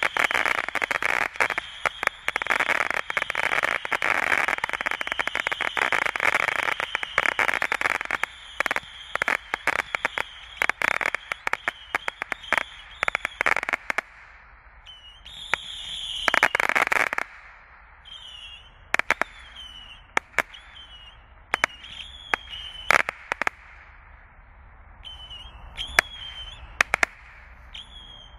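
Orion's Belt 300 single-ignition firework cake firing whistling, crackling missiles: a dense barrage of overlapping whistles and sharp pops for about the first eight seconds, thinning to scattered single whistles, each with sharp pops.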